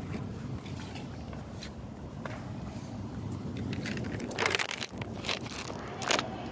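Steady low background rumble with the rustle of a phone being handled, and a few brief knocks and scrapes about four and a half and six seconds in.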